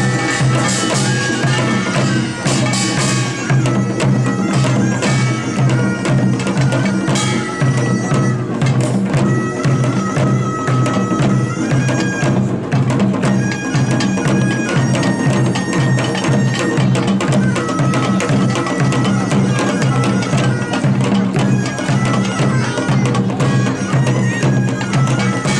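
Korean nongak band playing: a reedy taepyeongso shawm carries the melody in held and shifting notes over a steady, driving beat of drums and small gongs.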